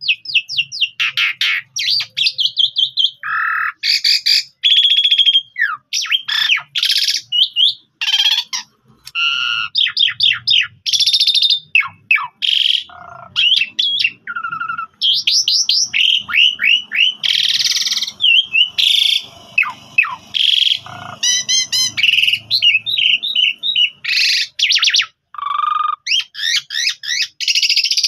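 Asian pied starling (jalak suren) singing in a long, unbroken run of varied notes: quick trills, whistled slurs and harsh chattering squawks.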